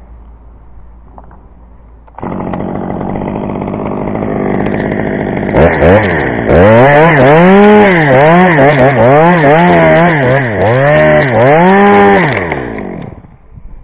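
Chainsaw engine catching about two seconds in and running, then revved up and down about six times, each rise and dip lasting roughly a second, before the revs fall away near the end.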